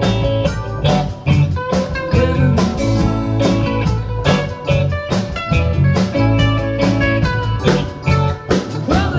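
Live rock band playing an instrumental jam with no singing: electric guitars over bass guitar, keyboards and a drum kit keeping a steady beat.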